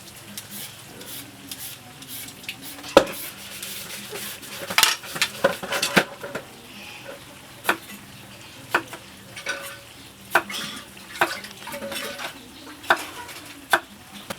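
A metal utensil stirring in a cooking pot, clinking against it roughly once a second, over a light sizzle of frying food.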